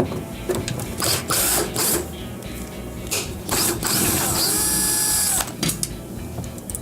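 Power screwdriver backing out Phillips screws in two runs. The second run lasts about two seconds, its motor whine rising, holding and dying away.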